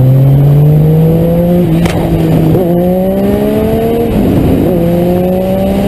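Motorcycle engine pulling under throttle, its pitch climbing steadily and dipping briefly twice, about two and a half and four and a half seconds in, as the rider shifts up, over wind rush.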